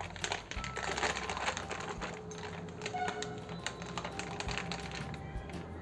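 Thin plastic sheet crinkling and crackling in quick irregular clicks as it is handled and peeled off a freshly pressed disc of rice-flour dough in a puri press.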